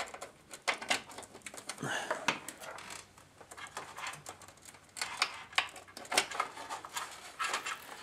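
Corsair HX750W power supply cables and their plastic connectors rustling and knocking against the PC case as they are pushed through its cable cutouts: irregular light clicks and taps.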